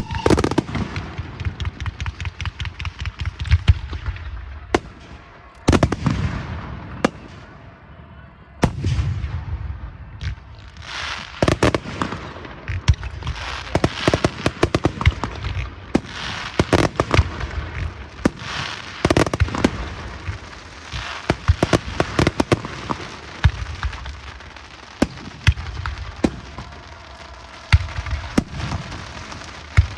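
Fireworks going off: rapid runs of sharp bangs and crackles, with deeper booms every few seconds.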